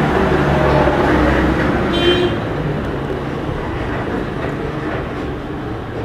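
Road traffic noise with a low rumble that slowly fades, and a short high-pitched horn toot about two seconds in.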